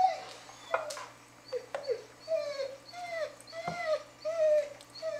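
A dog whining: a string of short, high, arching whimpers, about eight in all, with a few light clicks and knocks among them.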